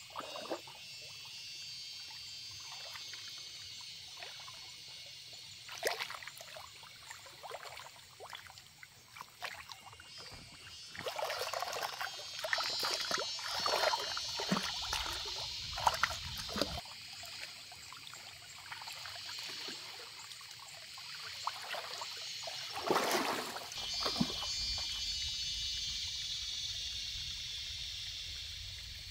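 Water splashing in a shallow stream as a person wades and scoops water over herself. The splashing is busiest in the middle, with one more burst later on, over the steady flow of the stream.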